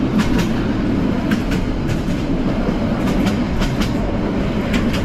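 Passenger train running, heard from inside the carriage: a steady low rumble with irregular clicks and knocks from the wheels and couplings.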